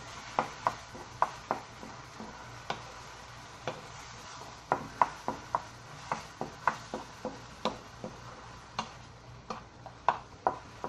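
Spatula knocking and scraping against a frying pan while jute leaves (molokhia) are stirred: a string of short, irregular clicks and taps, bunched in quick groups.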